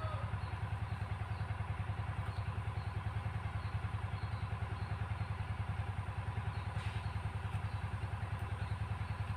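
Diesel engine of an irrigation water pump running steadily, with an even, rapid chugging beat.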